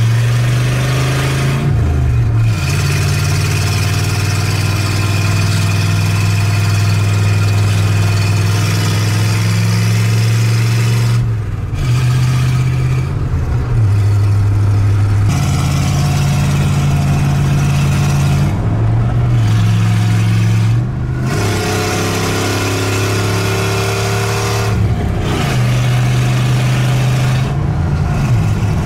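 Old Ford truck's carbureted engine running with no exhaust system fitted, loud and raw as the truck is driven. The engine note pulls steadily and climbs in pitch, breaking off briefly about five times: near the start, twice around the middle, and twice in the last third.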